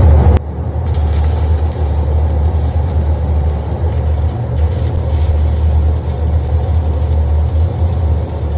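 Stick welding arc from a Fronius AccuPocket 150/400 battery-powered welder running on a 120 V supply: a steady crackling, frying hiss over a constant low hum.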